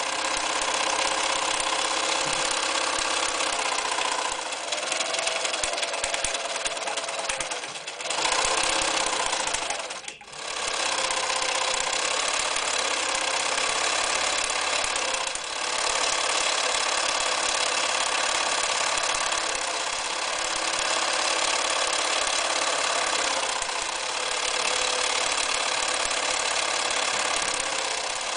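Bernina Record 730 electric sewing machine running fast and stitching, its motor pitch shifting as the speed changes, with a brief stop about ten seconds in.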